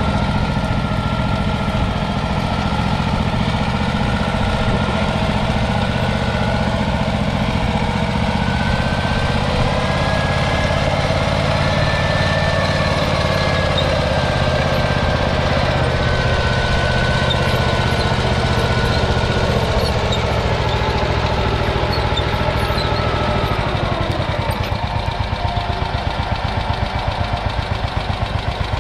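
1953 Ransomes MG6 crawler's 0.6-litre single-cylinder petrol engine running steadily with a rapid beat. Near the end the sound drops a little and its separate firing beats come through more distinctly.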